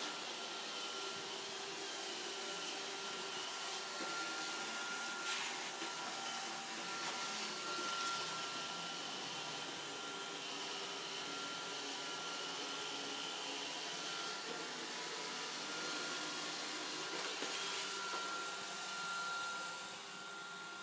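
iRobot Roomba 571 robot vacuum running: a steady motor whir with a thin high whine, broken by a few brief clicks, and growing a little quieter near the end.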